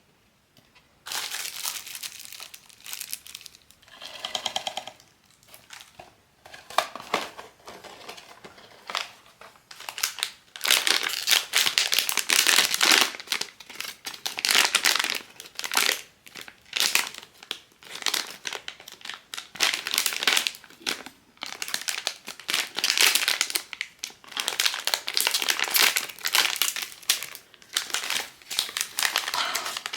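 Crinkly blind-box packaging being handled, torn open and crumpled in irregular rustling bursts. The crinkling gets denser and louder from about a third of the way in.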